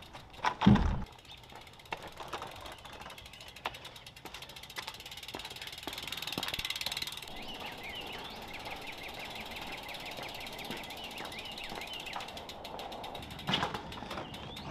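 A heavy thump about a second in. Then a bicycle's freewheel hub ticks in a fast, even run for several seconds as the bike's rear wheel rolls or spins, with a few knocks and clicks of the bike being handled.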